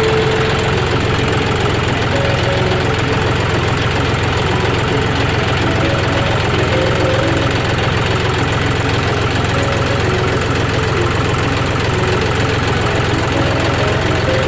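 Tractor's diesel engine running steadily, heard close up from on board the tractor.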